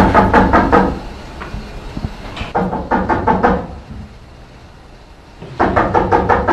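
Knocking on a door: three bouts of quick knocks, each about a second long, near the start, in the middle and near the end, with pauses between.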